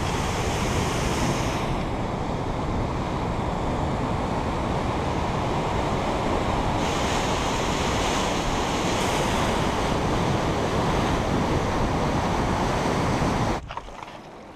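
Loud, steady rushing noise that cuts off abruptly near the end.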